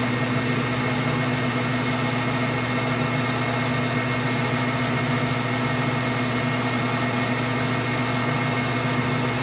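Metal lathe running steadily under power, a constant motor and spindle hum with a strong low tone, while the work is center drilled from the tailstock.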